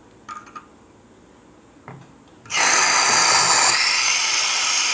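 Butane gas hissing loudly out of a portable camping stove's cartridge connection as the gas can is pushed on, after a few light metal clicks. The hiss starts suddenly about two and a half seconds in and stays steady. It is a leak: the stove's orange regulator valve was left open while the cartridge was fitted.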